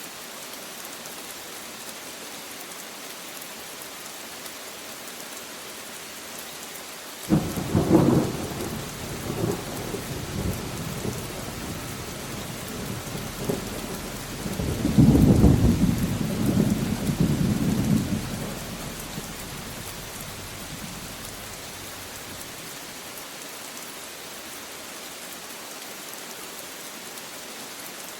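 Steady rain falling. About seven seconds in, a thunderclap breaks sharply and rumbles. A second, louder peal of thunder comes about fifteen seconds in and dies away to rain alone a few seconds later.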